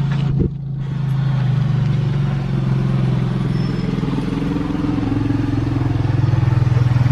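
Four-wheeler (ATV) engine running steadily as the quad rides up, growing louder in the last couple of seconds as it draws near.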